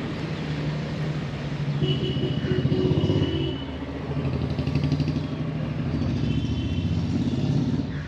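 Road traffic going by, motorcycles and cars, a steady engine hum that swells and fades as vehicles pass, with brief thin high tones twice.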